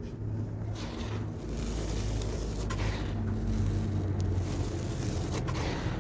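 Dry cement being crumbled: a steady gritty scraping with a few sharp crackles, over a constant low hum.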